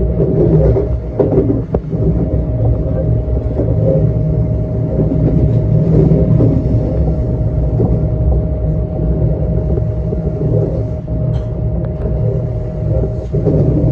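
Electric commuter train running on the rails, a steady heavy rumble with a constant hum held at one pitch throughout.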